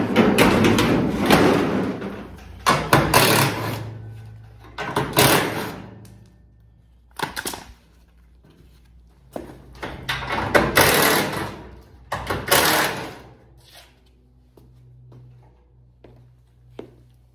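Steel garage door panel and its hinges banging as they are knocked and worked loose: about six loud metallic clangs, each ringing out for a second or so, before it goes quiet for the last few seconds.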